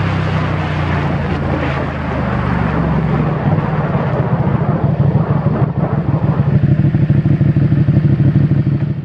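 Ducati Panigale's V-twin engine running at low road speed, with rushing air noise on the microphone. About halfway through the air noise fades and the engine settles into a lumpy, pulsing low-rev beat that grows louder toward the end.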